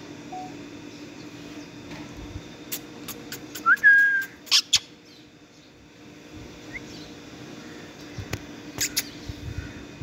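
Parakeets on a wire cage: a short whistle that rises and then holds steady about four seconds in, amid sharp clicks and short harsh calls, with a few more clicks near the end. A steady low hum runs underneath.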